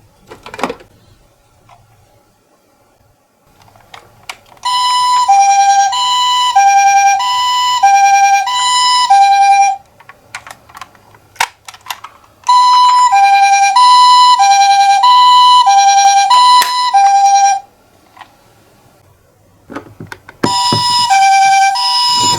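A toy miniature ambulance's electronic two-tone siren, alternating a high and a low note about once a second. It sounds in two spells of about five seconds and starts again near the end, with short clicks and knocks in the quiet gaps between.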